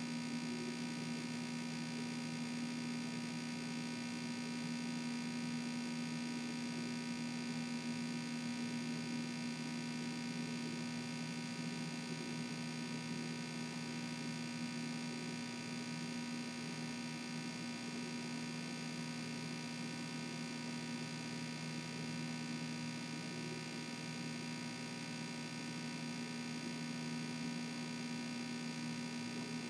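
Steady electrical hum made of several constant tones, the strongest of them low-pitched, with no chewing or other events standing out.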